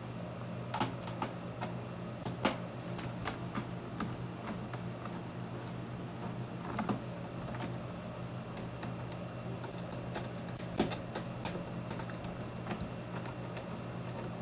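Scattered light clicks and taps from a small screwdriver working the case screws of a mechanical keyboard and the plastic case being handled, over a steady low hum.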